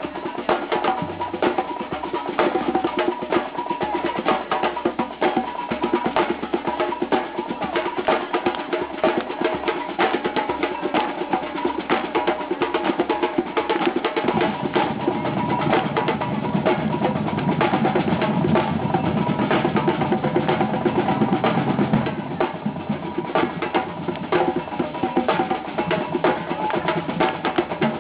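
Music driven by fast percussion: rapid drum and wood-block-like strikes over sustained pitched tones, growing fuller in the lower range about halfway through.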